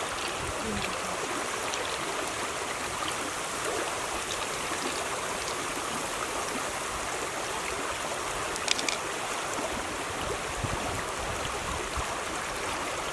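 Steady running water, with a couple of brief sharp clicks about two-thirds of the way through.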